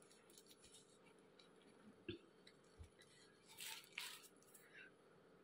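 Near silence, with a few faint taps and soft rustles from a clear plastic plant pot being handled, the clearest a little past the middle.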